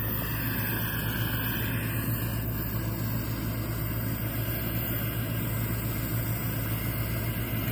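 Butane torch lighter's jet flame hissing steadily while it lights apple wood chips in a cocktail smoker.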